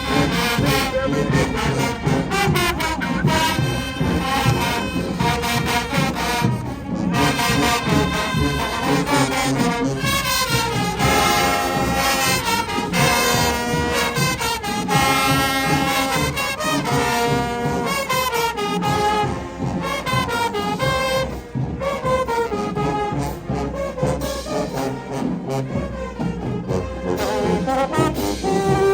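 A band playing loud music led by brass instruments, trombones prominent, over a steady beat.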